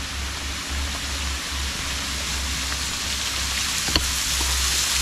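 Steady hiss of water splashing down a wet rock face, with a low rumble coming and going underneath and a single light click about four seconds in.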